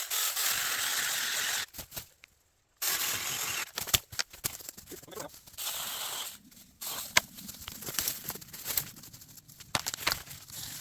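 Saker Mini battery-powered mini chainsaw running in two short bursts, cutting into a dead aspen treetop, followed by irregular crackling and snapping of wood and brush.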